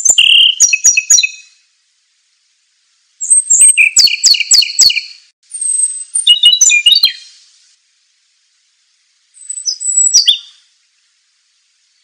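A male Ryukyu robin singing four short, quick phrases of high trilled and chirping notes, with pauses between them.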